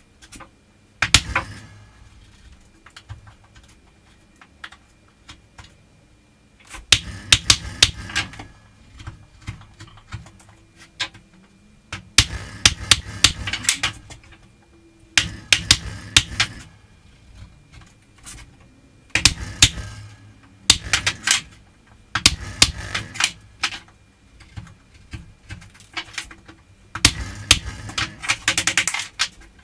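A wood chisel worked by hand into pine, making repeated bursts of rapid, crisp clicking and crackling as it cuts the wood fibres, with short pauses between the bursts.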